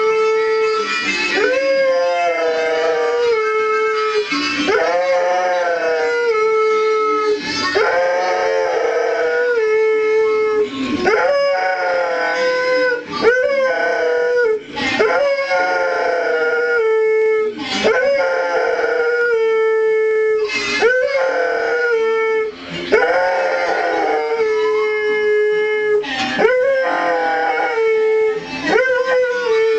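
Airedale terrier howling along to music: long drawn-out notes, each swooping up and then held and slowly sagging, one after another every few seconds.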